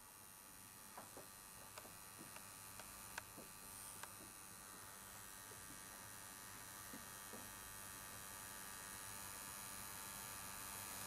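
Faint, steady electric hum of a Sungyun Tech semi-permanent makeup machine running during eyeliner tattooing, slowly growing a little louder, with a few soft clicks in the first seconds. The machine runs quietly.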